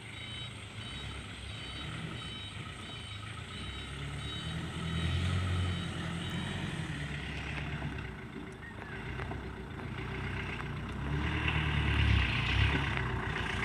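A 4x4 pickup's engine runs as it crawls over a rough dirt track. It picks up briefly about five seconds in, then grows louder near the end as the truck comes up close.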